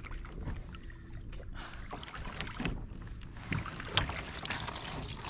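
Wind on the microphone and water moving around a kayak, with scattered small knocks and one sharp click about four seconds in.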